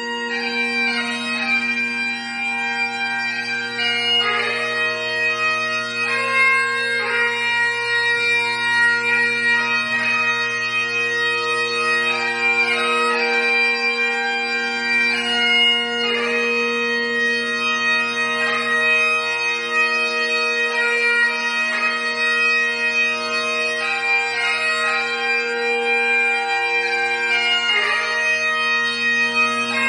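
Great Highland bagpipes playing a melody on the chanter over the steady, unbroken drones, the notes held about a second or two each.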